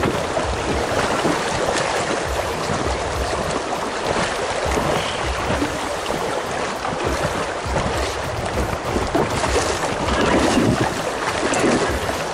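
Swift river water rushing and splashing around a packraft as it is paddled downstream, with a steady low rumble of wind on the microphone.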